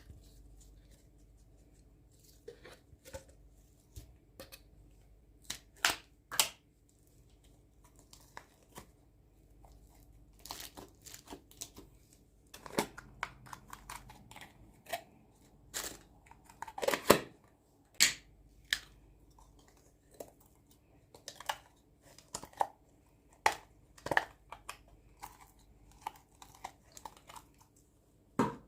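Slime being squished, stretched and folded by hand, giving irregular sticky pops and crackles at uneven intervals, with a louder cluster of pops about halfway through.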